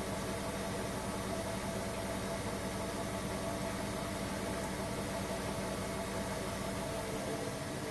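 Hoover washing machine running with a steady motor hum at constant pitch; its low rumble falls away near the end.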